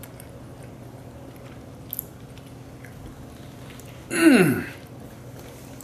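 A man quietly chewing a mouthful of cheesy pasta, then about four seconds in a short loud approving hum, 'mmm', that falls steeply in pitch.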